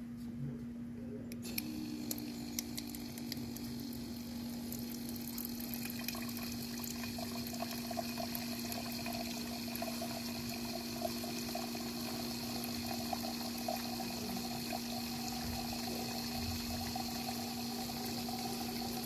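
3D-printed PLA water pump running: over a steady hum, water starts gushing and splashing about a second and a half in, then flows on steadily.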